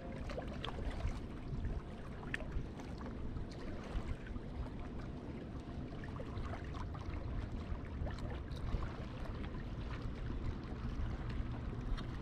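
Wind rumbling on the microphone over gentle water lapping against rocks, with scattered light clicks.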